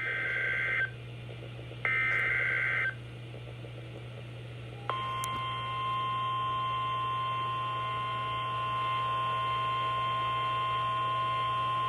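NOAA Weather Radio emergency alert signal: two buzzing digital SAME header data bursts, each about a second long and a second apart. About five seconds in, the steady single-pitch 1050 Hz warning alarm tone starts and holds, announcing a new warning.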